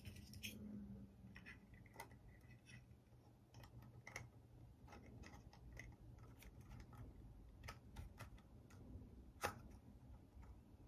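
Faint, scattered small clicks and taps of hands handling the drone and its packaging, with one sharper click about nine and a half seconds in.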